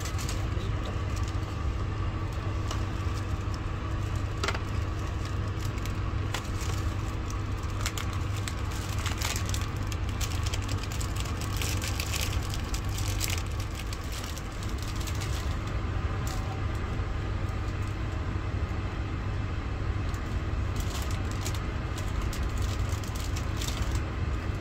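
Steady low rumble of a passenger train running, heard from inside the carriage, with scattered light clicks and crackles over it.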